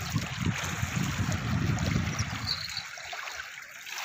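Small waves lapping and trickling over the pebbles at the water's edge, with a low rumble for the first two and a half seconds.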